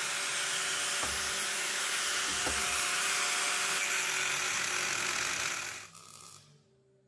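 Hand-held angle grinder running steadily against a bent 1¼-inch metal tube held in a bench vise, notching the piece to fit. The grinding stops suddenly about six seconds in, leaving near silence.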